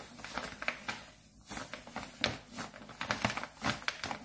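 Granulated sugar pouring from a plastic bag into a plastic mixing bowl, the bag crinkling as it is squeezed and tipped: irregular rustling and crackling with short pauses.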